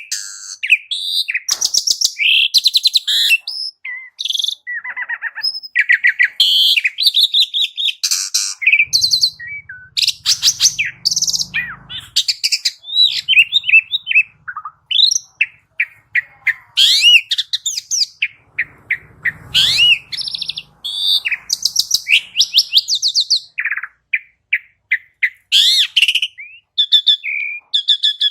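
Asian pied starling (jalak suren) singing at full volume: a long, varied run of whistled rising and falling notes, rapid chattering phrases and harsh buzzy calls, broken by many short pauses.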